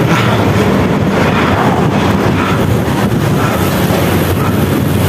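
Steady, loud wind rushing over the microphone of a camera on a moving road bike, mixed with the rumble of road traffic.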